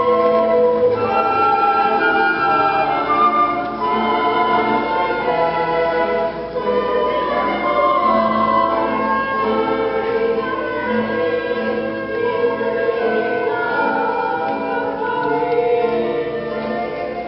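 A choir singing a Nahuat-Pipil song with orchestral accompaniment, sustained notes flowing continuously.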